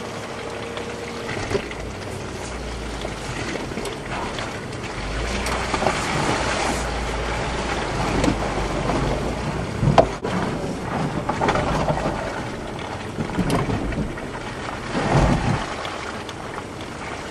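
Land Rover Discovery 3 driving slowly over a rutted, muddy off-road track, heard from inside the cabin: a steady engine and running-gear rumble with knocks and bumps from the suspension and body. A sharp knock comes about ten seconds in, and a louder bump around fifteen seconds.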